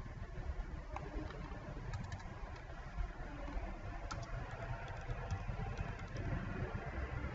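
Scattered clicks of a computer keyboard and mouse as a short text label is typed, over a steady low background rumble.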